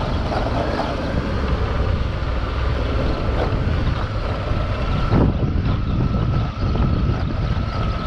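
Motorcycle engine running while riding, under heavy wind buffeting on the microphone, with a thin steady whine through most of it.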